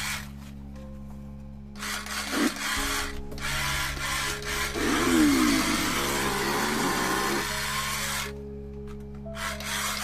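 Background music with steady low tones, overlaid from about two seconds in by a loud, harsh buzzing noise like a sawing power tool. The noise drops out briefly near the end, then returns.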